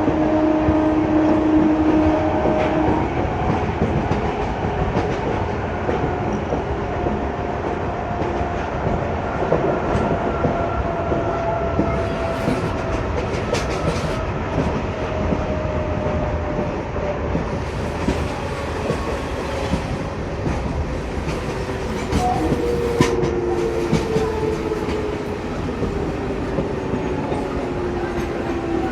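Passenger train running on the rails: a steady wheel rumble with the clickety-clack of rail joints and sharp clacks in the second half. A steady tone sounds for the first few seconds, and a faint whine slowly falls in pitch.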